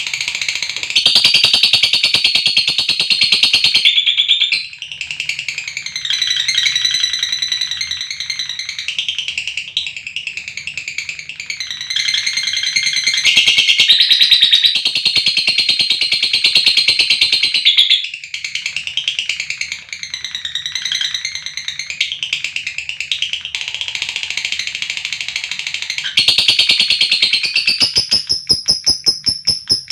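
Lovebirds chattering in long, rapid, high-pitched trills, the drawn-out 'ngekek' call, with a few short breaks. Near the end it turns into a run of clearer, evenly spaced high chirps.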